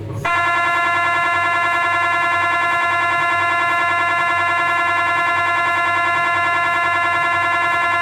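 Philips 1.5 T MRI scanner's gradient coils starting a planning/shim sequence about a quarter second in, then running as a loud, steady, buzzing tone rich in overtones.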